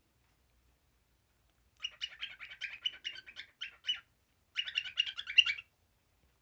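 Young cockatiel chattering: two quick runs of short chirps, the first about two seconds long, then a brief pause and a second, shorter run.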